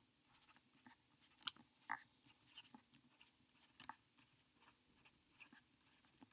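Faint, scattered taps and scratches of a stylus writing on a tablet screen, with a couple of sharper ticks about a second and a half and two seconds in.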